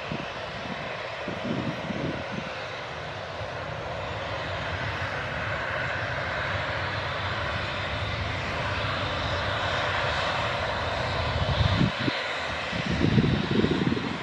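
Boeing 737-800's CFM56-7B jet engines running at taxi thrust as the airliner rolls past, a steady whine that grows a little louder toward the middle. Low rumbles come in about a second or two in, and louder ones near the end.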